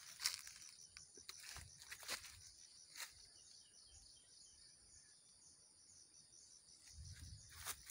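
Faint, steady chirring of insects, with a few sharp clicks scattered through and a low rustle near the end.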